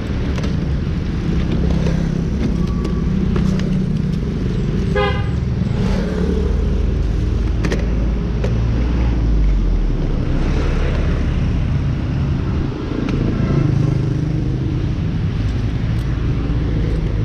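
Street traffic with a steady low engine rumble. A vehicle horn toots briefly about five seconds in, and a fainter one sounds later.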